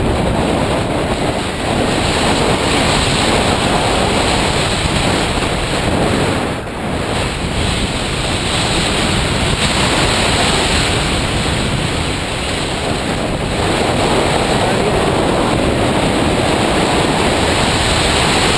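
Strong wind buffeting the microphone: a loud, steady roar with a few brief dips.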